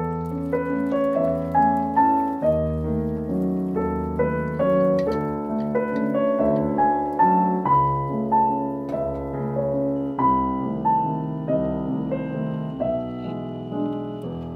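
Background piano music: a gentle melody of single notes, about two a second, over lower held notes.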